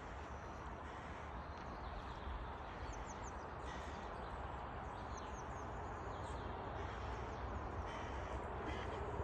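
Steady rushing background of the river, with birds calling over it: a few quick high chirps about three seconds in and short, harsher calls near the end.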